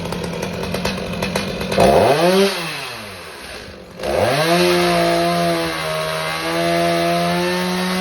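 Stihl two-stroke chainsaw, warm-started, idling with a rapid ticking firing beat, then revved up once about two seconds in and let fall back. It is revved again about four seconds in and held at high speed before dropping off near the end.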